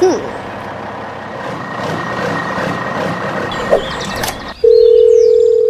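Steady mechanical vehicle noise with a constant whine and a few faint chirps. About four and a half seconds in it drops out and a loud, single, steady electronic beep sounds to the end.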